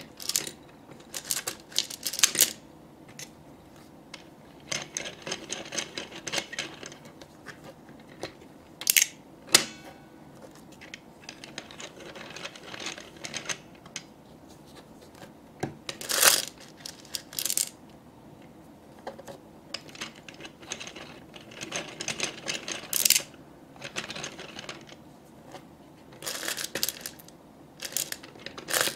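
Small plastic toy crane-game candy machine worked by hand: irregular sharp plastic clicks and several stretches of fast rattling from its claw mechanism and controls.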